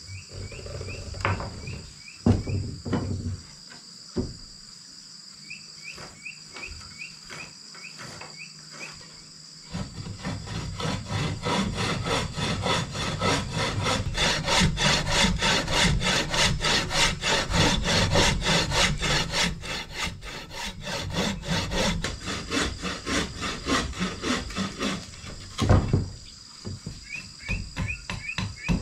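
Hand saw cutting through a thick wooden plank in quick, even strokes for about fifteen seconds, after a few scattered knocks of wood being handled. A single loud knock near the end.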